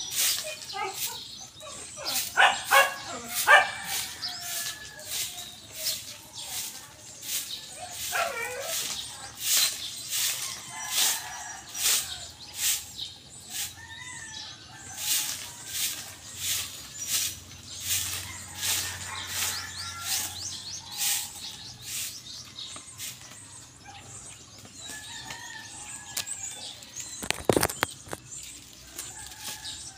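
Stick broom sweeping a dry dirt yard: repeated scratchy swishing strokes, roughly one or two a second, thinning out in the second half. One louder knock comes near the end.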